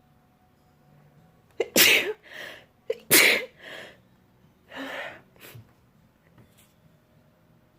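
A person sneezing twice in quick succession, about a second and a half apart, each sneeze followed by a softer breath, with a weaker breathy burst a little later.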